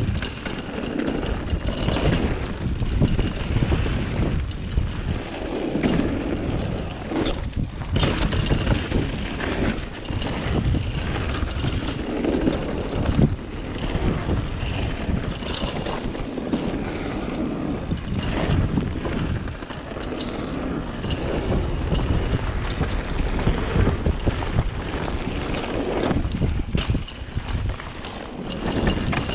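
Wind buffeting the microphone, a loud, gusty rumble that swells and drops irregularly.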